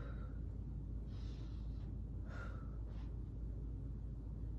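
A person breathing hard from exercise: a few audible breaths, roughly one a second, over a steady low hum.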